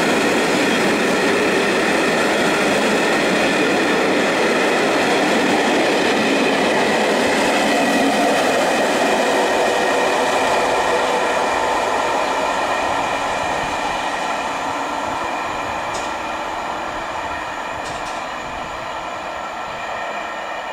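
Passenger coaches of a long-distance train rolling past on the rails: a steady wheel-and-rail rumble with a faint ringing whine, fading gradually from about halfway through as the last coach draws away.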